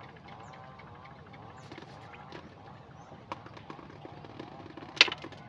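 A sharp knock about five seconds in and a few lighter clicks, over faint background voices.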